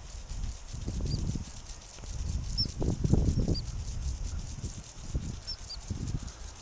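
Prairie dogs' faint, short, high alarm chirps, repeated about once a second, over a low uneven rumble of wind on the microphone.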